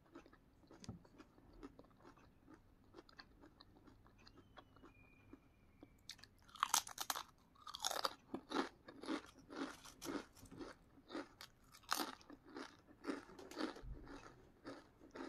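Close-miked chewing of crinkle-cut potato chips: faint mouth sounds at first, then loud, crisp crunches about two a second from about six seconds in.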